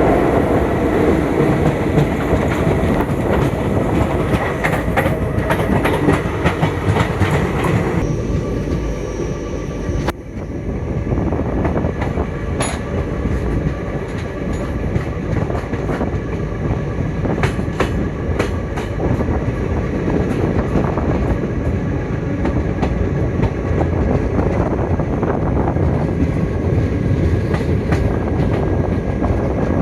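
Passenger train running along the track, a steady rumble with wheels clacking over rail joints. The sound changes abruptly twice, at about eight and about ten seconds in.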